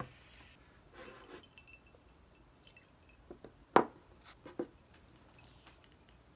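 A paper milk carton and a ceramic mug handled on a wooden table: a soft rustle about a second in, then a few light knocks, the sharpest about four seconds in.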